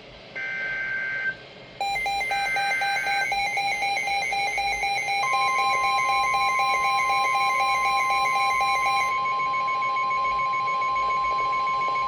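NOAA Weather Radio alert for a special marine warning: the last two one-second warbling bursts of the SAME data header, then a rapidly pulsing alert beep and, from about five seconds in, the steady 1050 Hz warning alarm tone.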